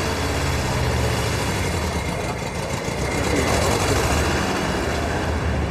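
A motor vehicle engine running steadily: a continuous low rumble with a wash of noise over it.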